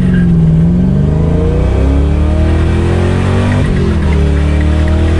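Small-block Chevy V8 with a big cam in a 1964 Chevy II Nova Super Sport, accelerating hard, heard inside the cabin. The engine note climbs steadily, drops sharply about three and a half seconds in, then climbs again.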